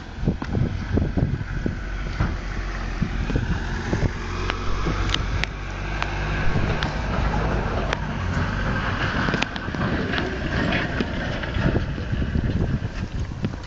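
Wind rumbling on a phone microphone, with frequent light clicks and knocks throughout.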